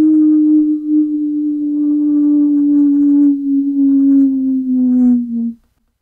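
Tornado warning siren holding one steady tone that sags slowly lower in pitch and swells slightly in level, then cuts off suddenly about five and a half seconds in.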